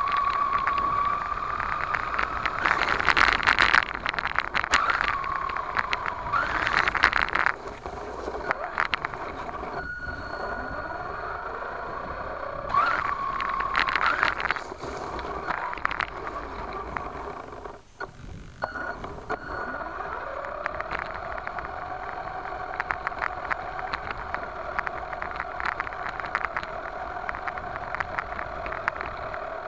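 A 1/10-scale RC monster truck driving on a dirt track, recorded from its onboard camera: the motor whines, its pitch dipping and rising with the throttle, over constant crackling and scraping of the tyres and chassis on loose dirt. About 13 to 15 seconds in the scraping grows loud as the truck ploughs into dry grass. From about 20 seconds the whine holds steady at a lower pitch.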